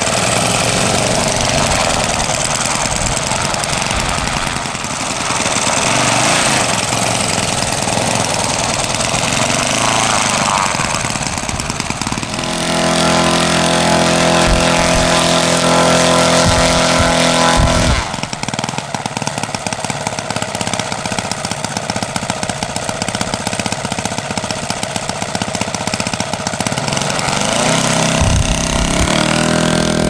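Kolm 65 cc four-stroke engine and propeller of a large-scale RC Demoiselle model running on the ground at varying speed. It holds an even drone for a few seconds in the middle, then revs up near the end as the model lines up for takeoff.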